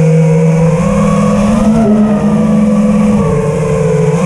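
FPV racing quadcopter's motors and propellers whining in flight, the pitch rising about a second in and falling back a little after three seconds as the throttle changes.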